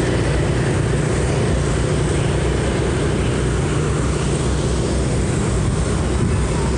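Steady rushing rumble of riding a motor scooter through traffic: wind on the microphone, road noise and the scooter's engine running underneath.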